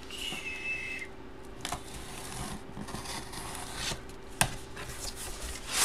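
Handling a sealed cardboard box: a brief high squeak in the first second, then rubbing and scraping with a few sharp clicks. The squeak is typical of a marker pen on cardboard.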